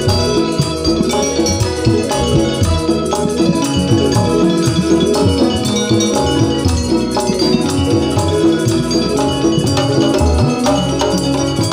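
Live gamelan music: hand-played kendang drums beating a busy rhythm over the ringing of bronze gong-chimes and metallophones.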